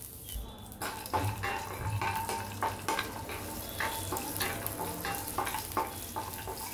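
Cashews, almonds and pistachios frying in desi ghee in a kadhai: a spoon stirs them, scraping the pan and knocking the nuts about over a light sizzle. The clicking and scraping start about a second in.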